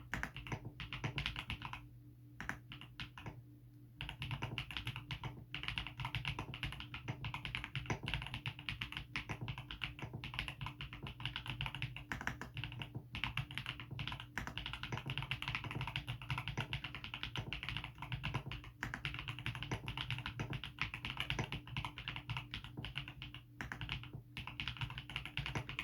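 Typing on a GMK67 mechanical keyboard with stock Akko V3 Pro Cream Blue switches and GMK Olivia clone keycaps: a fast, continuous run of keystroke clacks, thinning out briefly about two seconds in.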